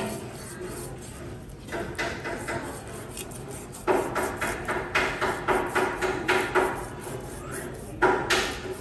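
Cleaver blade scraping the scales off a whole fish on a plastic cutting board: quick repeated strokes, about three a second, getting stronger about four seconds in, with a short pause before one more hard stroke near the end.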